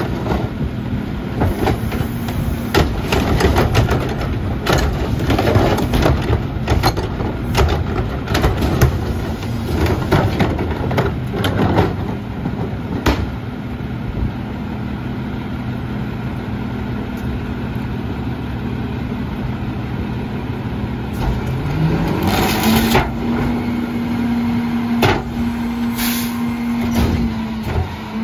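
Rear-loader garbage truck at work: trash and a plastic cart banging into the hopper over the diesel engine idling, then about 21 seconds in the engine speeds up and holds higher as the packer is cycled, with two short hisses.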